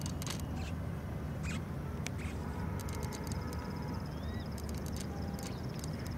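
High-pitched bird chirps and a rapid ticking trill over a steady low rumble.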